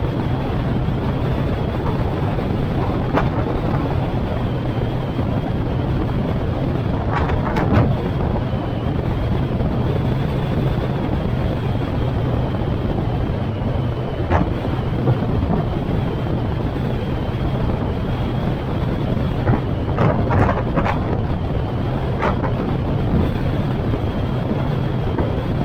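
A car driving at road speed: a steady low hum of engine and tyre noise with wind buffeting the microphone, and a few brief knocks scattered through.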